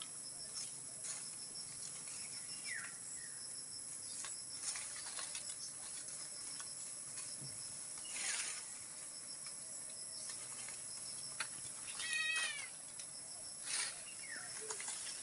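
Leaves and branches of a calamansi tree rustling as fruit is picked by hand, with a few short high animal calls, the clearest about twelve seconds in.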